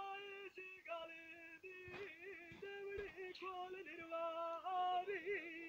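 A man singing a Punjabi dhola unaccompanied, in a high voice, holding long notes that bend and waver at the ends of phrases.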